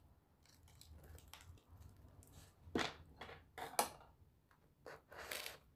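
Hands press lettuce leaves down and set a sesame bun on top of a tall stacked burger. Soft rustling and crinkling, with a few sharper crackles about three and four seconds in and near the end.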